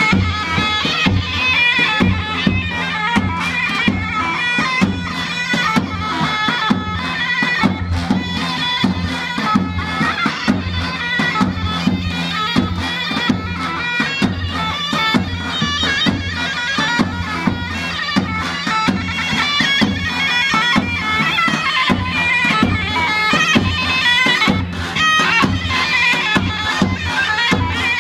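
Folk dance music: a shrill reed wind instrument plays a melody over a steady low drone and an even drum beat.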